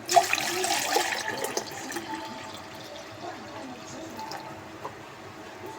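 Water pouring and splashing, sudden and loud at first and trailing off after about two seconds.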